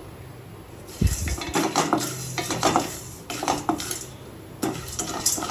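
Metal spatula scraping and clinking against a stainless-steel kadhai as unpopped popcorn kernels are stirred in a little oil, beginning with a knock about a second in and going on in irregular strokes.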